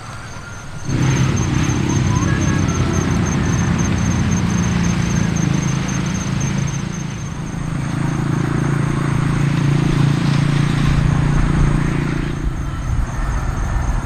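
An engine running steadily. It starts abruptly about a second in, swells slightly in the second half and drops away near the end.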